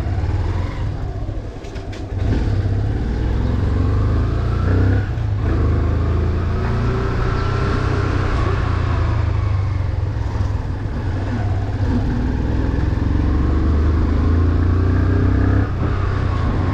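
Motorcycle engine pulling away and riding at low speed, its pitch rising and falling as it revs up and eases off through the gears. It is quieter for a moment about two seconds in, then runs louder for the rest of the ride.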